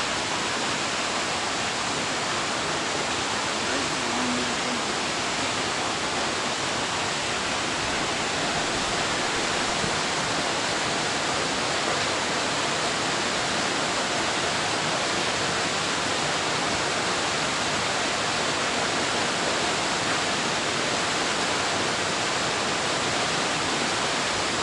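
Steady, unbroken rushing of flowing water.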